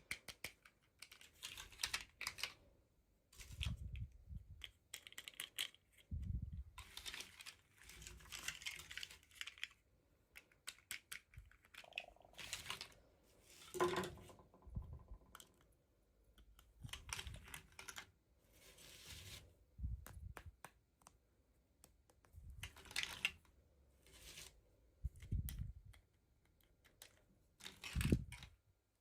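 Small plastic toy packaging being handled and opened by hand: irregular clicks and taps, with short bursts of rustling and tearing.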